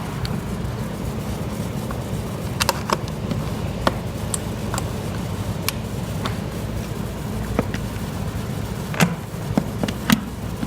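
Window sash being worked up and down in its side tracks, with scattered sharp clicks and knocks as it binds, sitting crooked rather than square, over a steady low hum.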